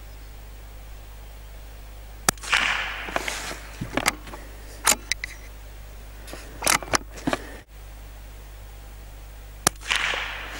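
Lithgow LA101 .22 LR rifle firing two sharp shots about seven seconds apart, one about two seconds in and one near the end, each with a short rushing tail, with lighter clicks and knocks between them.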